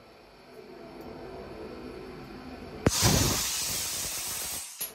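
Dry ice blasting gun firing a burst at a metal trim bracket: a sharp click as the trigger opens, then a loud rushing hiss of compressed air and dry ice for about two seconds, cut off abruptly near the end. Before the burst, only a faint low hum.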